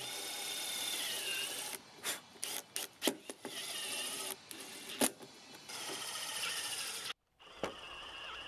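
Cordless impact driver running in several short bursts, each about a second long, driving small screws into a plastic gate latch housing and its bracket, with a whine that rises and falls. There are clicks and knocks between the bursts.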